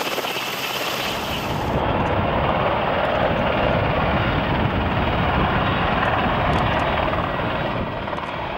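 EH101 prototype helicopter hovering close by, its rotors and turbine engines running steadily. About two seconds in, the higher hiss drops away and the deeper rotor sound becomes stronger.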